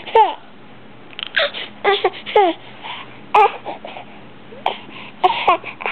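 Six-month-old baby vocalizing in a string of short babbles and squeals in a high voice, several of them sliding down in pitch.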